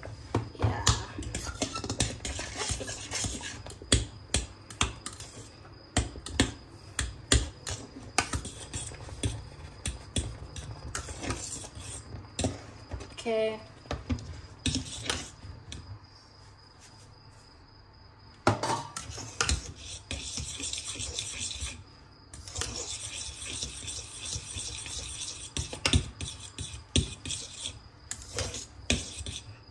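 Metal stirring utensil scraping and knocking against a stainless steel pot as maize meal is mixed into boiling water to make phuthu: irregular scrapes and clatter, easing off for a couple of seconds past the middle.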